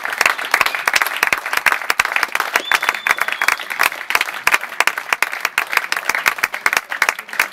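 Sustained applause: many hands clapping in a dense, steady crackle, an ovation for a player leaving the pitch.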